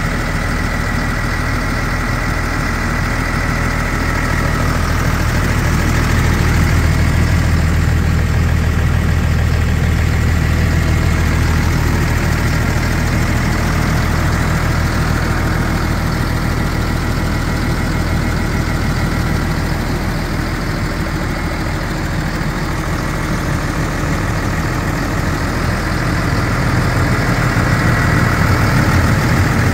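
2007 Fendt 920 Vario TMS tractor's MAN six-cylinder diesel engine idling steadily.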